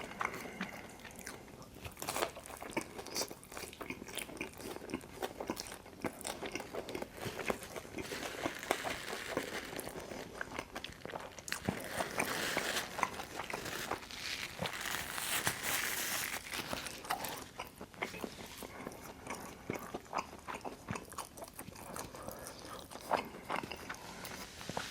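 Close-miked chewing and biting of Detroit-style pizza: a steady stream of short, irregular mouth clicks and crackles.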